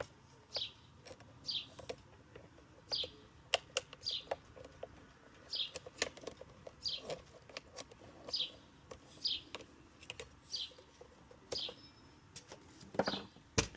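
A small bird chirping over and over, short falling chirps about once a second. Light clicks and knocks from pressure-washer parts being handled sound among them.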